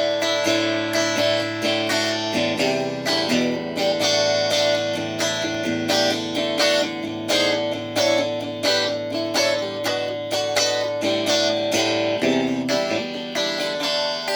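Stratocaster electric guitar being played: a steady stream of picked and strummed chord notes, with the chord changing about two seconds in and again near the end.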